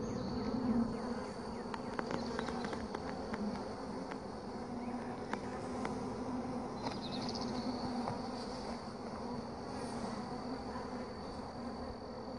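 Honeybee colony buzzing in an opened hive: a steady, low hum. A few light clicks come about two to three seconds in.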